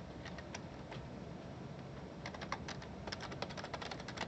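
Typing on a computer keyboard: a few scattered keystrokes, then a quick run of keystrokes about two seconds in.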